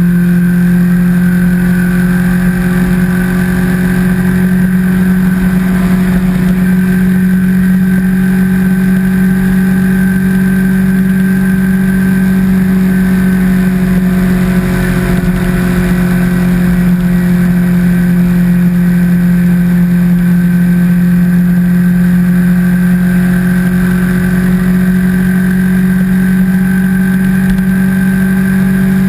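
Sportbike's inline-four engine running at steady, nearly constant revs while cruising, with the engine note holding one pitch.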